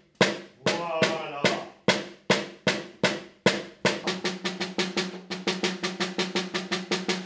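Children beating rope-tensioned carnival drums (Sonorus brass-shell drums) with wooden sticks. The strokes come evenly at about two a second, then from about four seconds in quicken to a steady beat of about five a second.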